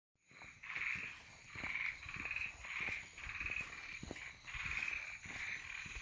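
Frogs calling in a chorus: short pulsed croaks repeating about twice a second, with scattered sharp clicks and knocks.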